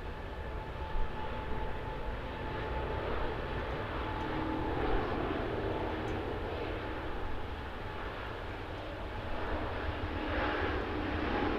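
Rolls-Royce Trent XWB turbofans of a Japan Airlines Airbus A350-900 moving along the runway: a steady jet rumble with faint held whining tones, swelling a little louder near the end.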